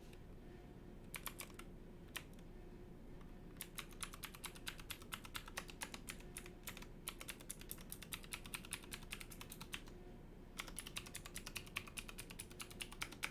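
Mechanical keyboard being typed on: a few single key presses, then a long run of fast typing, a short pause about ten seconds in, and another quick run of typing.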